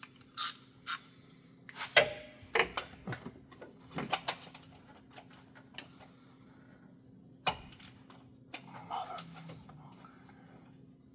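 Oil filter wrench clicking and knocking as it is fitted to and worked against a stuck oil filter, a cluster of sharp knocks in the first few seconds, one more later and a short scuffing near the end, over a faint steady hum.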